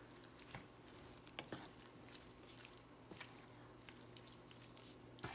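Faint stirring of crawfish tails in butter with a wooden spatula: soft wet squishing and a few light knocks of the spatula against the pan, over a faint steady hum.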